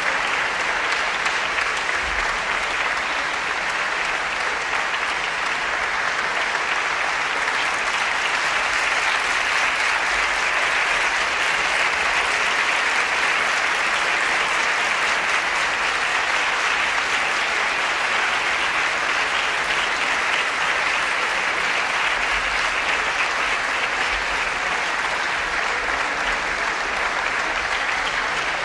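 Large concert-hall audience applauding steadily, with the performers on stage clapping too.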